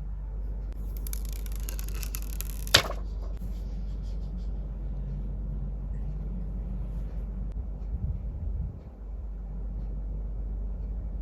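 Close-up handling noises from unboxing and fitting a phone's accessories: a scraping rustle of about two seconds that ends in one sharp click, then softer handling sounds, over a steady low hum.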